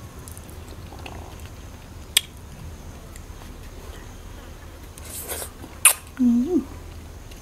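Close-up eating sounds of someone chewing and sucking soft ripe fruit: faint mouth clicks, a short slurping hiss about five seconds in, a sharp click just before six seconds, then a brief hummed 'mm' that rises in pitch.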